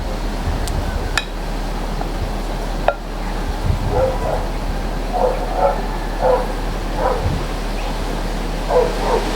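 A dog making short, repeated pitched calls, starting about four seconds in, over a steady background hiss, after two light clicks.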